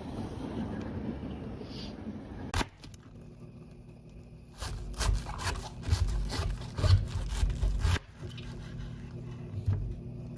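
Scraping and knocking of hard objects being handled: a run of uneven strokes and knocks lasting about three seconds in the middle, after a stretch of steady background noise.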